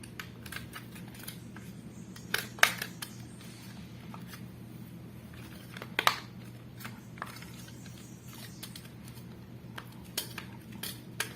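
Small hard clicks and taps from a notebook's plastic and metal parts being handled as a part that did not seat properly is pushed back into place. There is a pair of sharper clicks a few seconds in and another near the middle, over a steady low hum.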